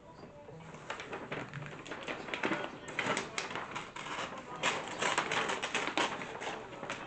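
Wrapping paper being handled and folded, a rapid irregular run of crinkles and sharp crackling clicks that grows busier about halfway through.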